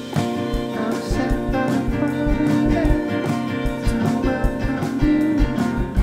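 Music: a song with guitar over drums, the kick drum thumping low throughout.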